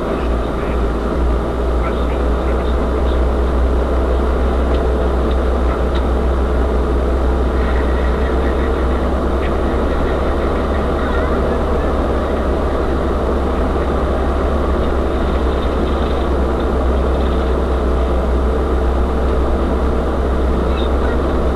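UAZ-3909 'Bukhanka' 4x4 van driving off-road: a steady low engine and drivetrain drone, with road noise and small rattles.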